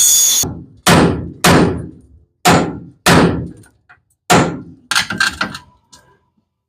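A power tool runs briefly and cuts off about half a second in. Then come five loud hammer blows on metal, one every half second to a second, followed by several lighter knocks near the end.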